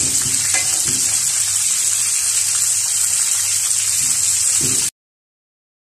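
Chicken pieces deep-frying in hot oil in a wok: a steady, loud sizzle of bubbling oil that cuts off abruptly about five seconds in.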